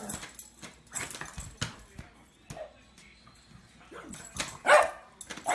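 A dog barking, with one loud bark near the end and scattered short clicks and knocks before it.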